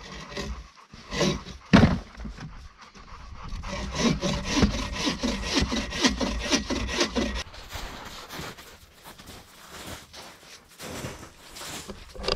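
Hand saw cutting through dry wood in rhythmic back-and-forth strokes, strongest a little over halfway through, then slower and fainter. Two sharp knocks come in the first couple of seconds.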